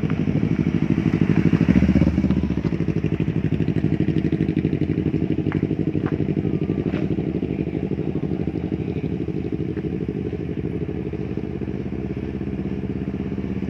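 Sport motorcycle with an aftermarket exhaust idling close by, a steady rapid putter. A second motorcycle rides past near the start, making the sound louder for a moment about two seconds in.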